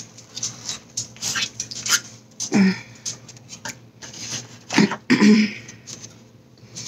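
Close-miked eating sounds: chewing and wet mouth clicks, with a fork and fingers working at chili cheese food in a cardboard tray. There are two or three short low throat noises from the eater, about two and a half seconds in and again around five seconds.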